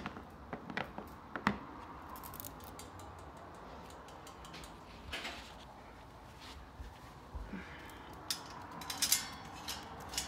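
Scattered light clicks and scratches from a blue plastic pet carrier being handled, a few sharp clicks near the start and a cluster about eight to nine seconds in, with a short scratchy rustle in between.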